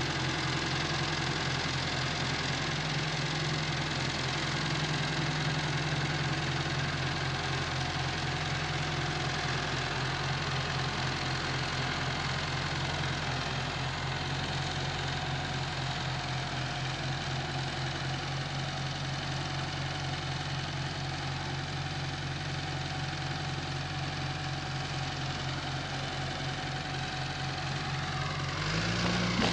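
Massey Ferguson tractor's diesel engine idling steadily, its note stepping up slightly near the end.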